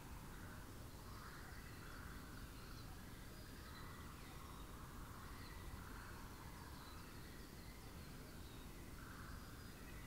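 Faint outdoor ambience of birds calling: hoarse, raspy calls repeating every couple of seconds, with faint high chirps, over a steady low rumble.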